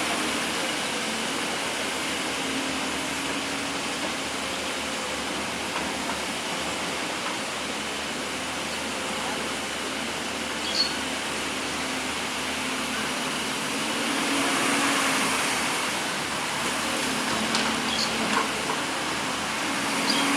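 Hydraulic excavator's diesel engine running steadily while it digs, with a short sharp knock about halfway and a few more near the end.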